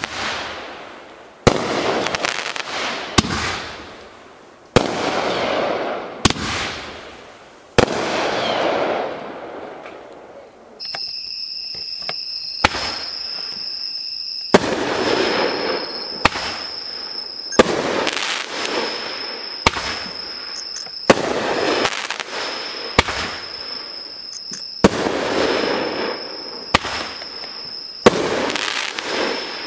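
Consumer firework cakes (200-gram, 9-shot, 1-inch and 1.2-inch tubes) firing shot after shot, about one every second and a half. Each shot is a sharp bang followed by a hiss that fades.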